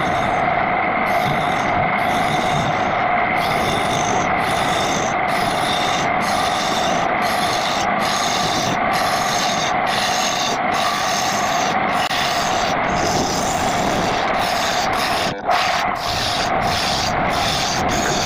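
Homemade belt-driven wood lathe running with a steady hum while a hand-held turning tool cuts the face of a spinning wooden bowl blank. The cut is a rough scraping sound that breaks off briefly about once a second.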